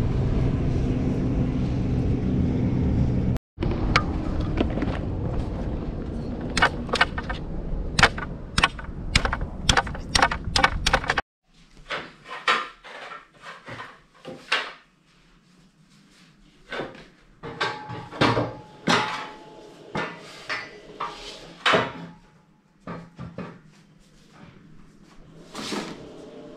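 Clicks and knocks of hands working the wood and warp of a rug loom, over a steady low rumble for the first eleven seconds; after that the clicks and knocks stand alone against a quiet background.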